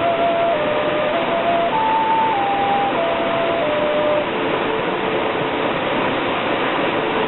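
A flute playing a slow melody of held notes over the steady rush of a waterfall. The tune climbs to its highest note about two seconds in, steps down to a longer low note, and breaks off a little past halfway, leaving only the waterfall.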